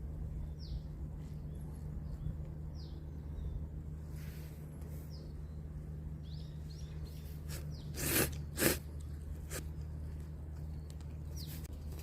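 Short, high chirps of small birds scattered over a steady low background hum, with two loud sharp knocks in quick succession about two-thirds of the way in.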